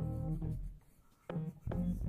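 Instrumental background music: short runs of plucked notes, with a brief pause near the middle.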